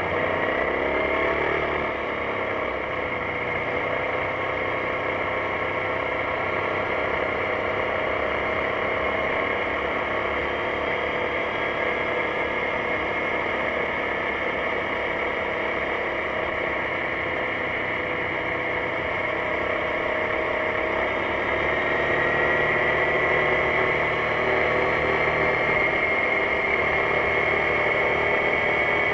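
BMW C650GT maxi-scooter's parallel-twin engine running on the move, with wind and road noise rushing over it. The engine note falls over the first two seconds as it slows, holds steady, then rises again from about two-thirds of the way through as it speeds up.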